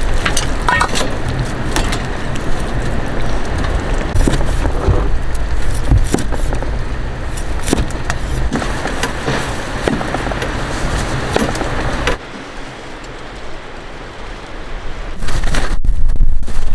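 Strong wind buffeting the microphone in a heavy low rumble, with scattered light clicks and clinks. The rumble drops away suddenly about twelve seconds in and comes back loud near the end.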